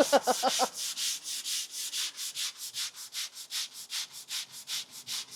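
Hand sanding of cured two-part polyester body filler on fibreglass with a sanding block: quick, even back-and-forth strokes, about four a second, each a short rasping hiss.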